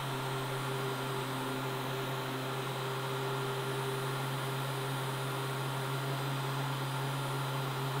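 ECOVACS Deebot N8 Pro+ self-empty station's suction motor running steadily, sucking the dirt out of the docked robot's dustbin. It is a steady low hum over an even rush of air.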